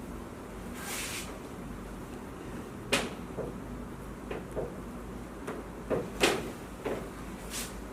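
A few sharp clicks and soft knocks over a low steady hum: a loud one about three seconds in, two close together about six seconds in, and lighter ones after.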